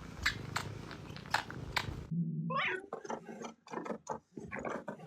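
A domestic cat: a run of sharp, evenly spaced clicks or crunches, then after a sudden cut a short rising cry followed by rapid clicking.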